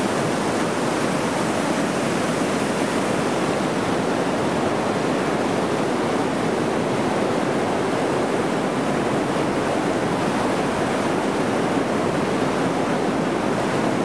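A river in flood rushing over rapids: fast, churning whitewater making a loud, steady rushing noise with no let-up.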